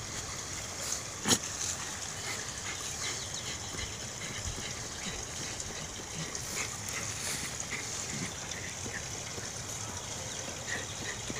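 A puppy digging in loose garden soil, its paws scraping and scattering dirt in a steady run of small scratches, with one sharp click about a second in.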